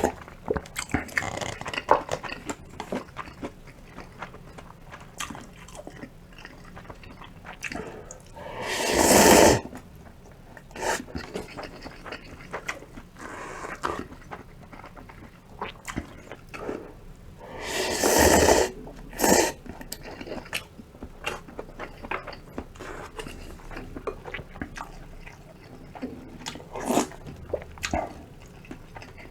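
Eating sounds of cup ramen and side dishes: steady chewing and small wet mouth clicks, broken by two loud slurps of noodles about a third and two thirds of the way through, with a short extra slurp just after the second.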